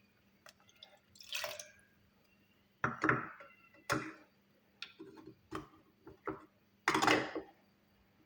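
Lemon juice being poured into a jar amid a string of sharp knocks and clinks from kitchen containers and utensils; the loudest noises come about three seconds in and near the end.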